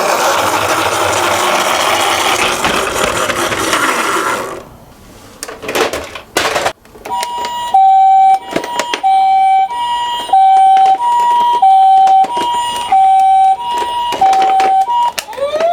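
A toy car rattles as it rolls for about four seconds, followed by a few clicks. Then an electronic ambulance siren plays the Japanese two-tone pee-po, alternating a high and a low tone about every two-thirds of a second. Near the end a rising wail begins.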